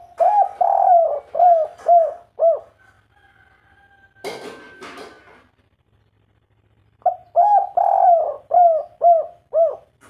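Spotted dove singing its kuk 3 coo song twice: each phrase is a run of short arched coos ending in quicker clipped notes. Between the two phrases there is a short burst of noise.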